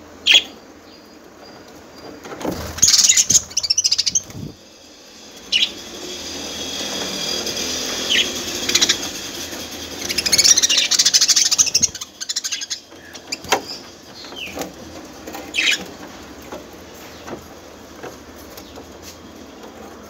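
Several budgerigars chirping and chattering, with short sharp calls throughout and louder bursts of rapid chatter about three seconds in and again around ten seconds.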